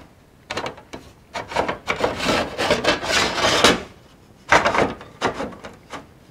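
Metal chicken-coop door sliding up in its metal side rails with a scraping rub for about three seconds, followed by several clicks and knocks as its bracket is fitted onto the actuator arm.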